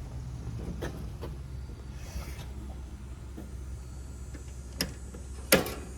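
Scattered clicks and knocks from tools and electrical parts being handled, the loudest a sharp knock near the end, over a steady low hum.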